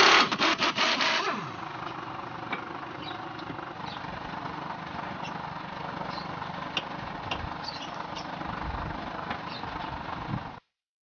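A brief run of rapid mechanical rattling at the start, fading within about a second, then a steady mechanical noise with scattered light clicks, typical of tool work on the stabilizer link nuts.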